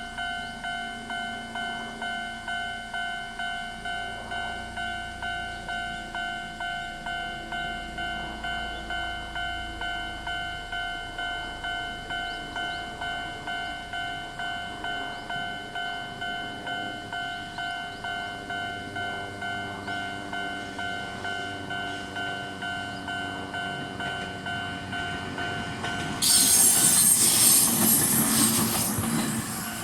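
Japanese railway level crossing warning bell, the older standard electronic tone from a small speaker, ringing in steady, evenly repeating pulses. About 26 seconds in, a train passes over the crossing loudly and drowns the bell for a few seconds.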